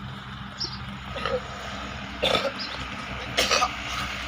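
Short calls from farm livestock: two loud ones about two and three and a half seconds in, with fainter ones before them, over a steady low hum.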